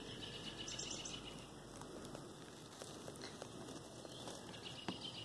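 Faint scratching and small clicks of fingers rubbing and picking tape off a painted board, over chirping insects; the sharpest click comes near the end.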